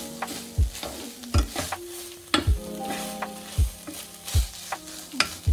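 Chicken mince frying in a metal pan with a steady sizzle, while a spatula stirs and scrapes through it in strokes about once a second.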